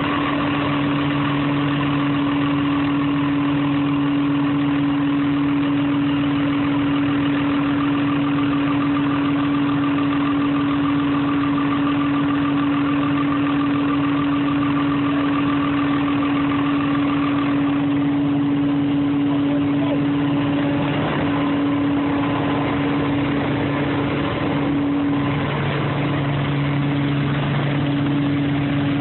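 Heavy-equipment diesel engine idling steadily with an even hum. A fainter higher whine in it drops out a little over halfway through.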